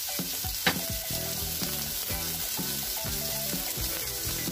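Salmon fillets sizzling in olive oil on an electric griddle, a steady frying hiss, with one sharp click less than a second in. Soft background music with repeating notes plays under it.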